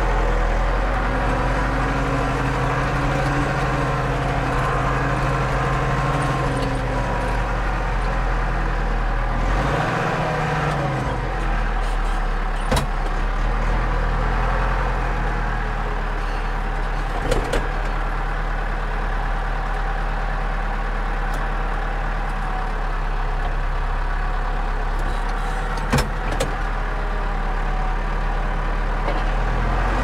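Tractor engine running steadily, heard inside the cab while the front loader handles a bale. Its note dips and picks up again about ten seconds in, and a few sharp knocks sound midway and near the end.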